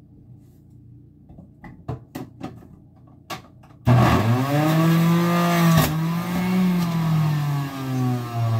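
A few light clicks and knocks, then about four seconds in an electric juicer's motor switches on and runs loudly with a steady hum whose pitch dips and recovers while ginger is juiced.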